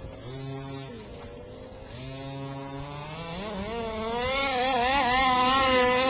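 Gasoline remote-control car's small two-stroke engine buzzing: a short burst near the start, then a longer run in which the revs climb and the note grows much louder, holding high near the end.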